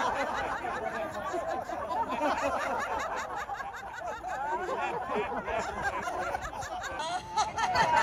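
A group of women laughing together, many voices overlapping in continuous chuckles and giggles, as a deliberate group laughter exercise.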